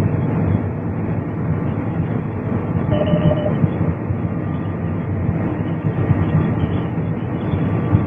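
Combine harvester running steadily, heard from inside the cab: a dense engine and machinery drone with a faint steady whine. A short tone sounds about three seconds in.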